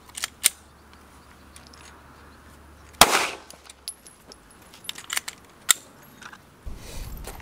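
A single gunshot about three seconds in, a sharp crack with a short echo, with a few quieter sharp clicks before and after it.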